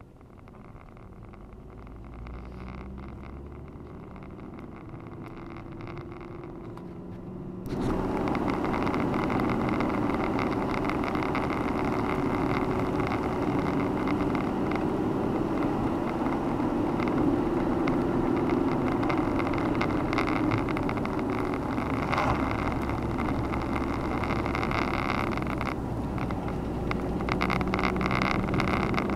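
Car driving on a mountain road: a steady low engine hum with road noise. Quieter and slowly rising at first, then jumping sharply louder about eight seconds in, with a hiss reaching into the highs.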